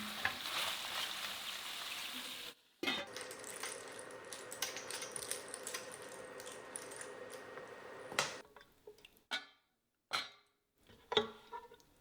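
Food sizzling in a frying pan as it is stirred, broken by a short cut about two and a half seconds in and stopping about eight seconds in. A few light clinks and knocks of utensils and dishes follow near the end.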